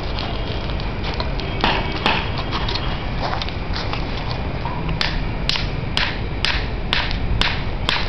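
Hand hammer striking red-hot steel on a steel block used as an anvil. Two blows come about a second and a half in, and a steady run of sharp metallic blows at about two a second starts about halfway through. A steady background noise runs under the blows.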